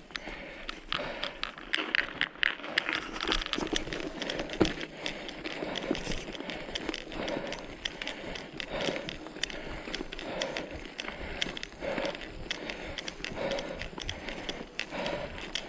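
Footsteps of a hiker climbing a mountain trail, a steady run of crunching and clicking with clothing rustling.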